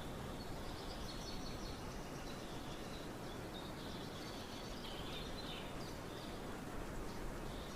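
Steady rain with small birds singing in short high chirps and trills, busiest through the first six seconds.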